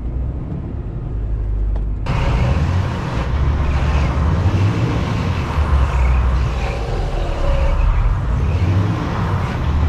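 Scania R410 truck's diesel engine running under load, its rumble swelling and easing as the truck is rocked forward and back to free it from snow and ice. About two seconds in the sound suddenly becomes fuller and brighter, with a broad hiss added.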